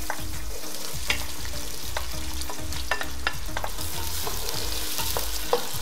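Freshly sliced onions sizzling in hot oil in a metal pot as they begin to fry, stirred with a wooden spoon that taps against the pot now and then.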